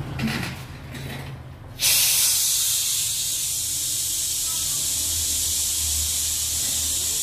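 A steady hiss of rushing air starts suddenly about two seconds in and holds evenly, with a faint low hum underneath.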